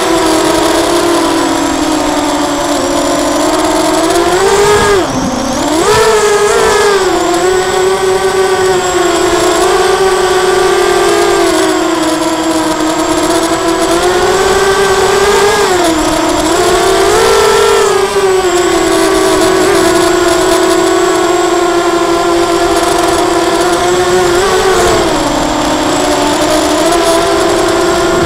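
Lumenier QAV250 quadcopter's brushless motors and propellers whining steadily in flight, heard from its onboard camera. The pitch dips and swings back up a few times as the throttle changes.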